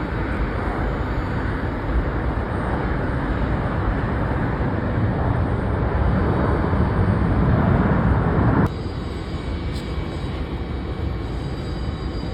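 Jet aircraft engine noise: a loud, steady rumble that grows a little louder, then cuts off abruptly about two thirds of the way through. A quieter steady rumble with a faint high whine follows.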